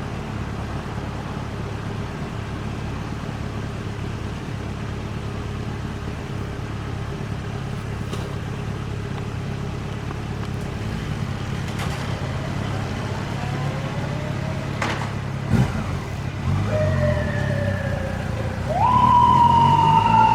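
Road traffic with engines running, with a single sharp knock about three-quarters through. Near the end a police motorcycle's siren starts up, climbing and then slowly falling in pitch, signalling the start of a pursuit of a car that ran a red light.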